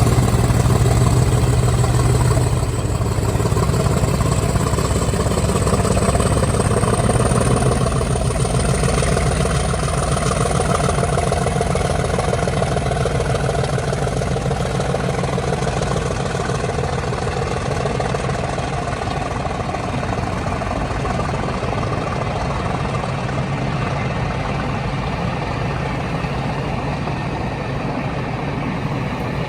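Mainline diesel locomotive engine running steadily, easing slightly a few seconds in and then slowly fading. A faint high whine rises a little in pitch during the first ten seconds.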